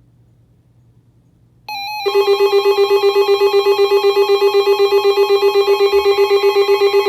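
Emergency Alert System alert tone from a TV broadcast: after a faint hum it starts abruptly a little under two seconds in, a loud warbling electronic tone pulsing about seven times a second.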